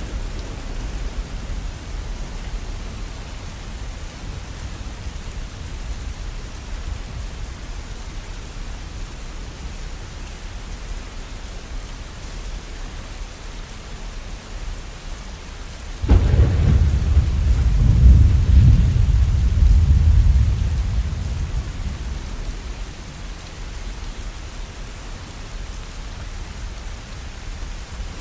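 Steady rain falling. About halfway through, a thunderclap breaks in suddenly and rolls on as a deep rumble for several seconds before fading back under the rain.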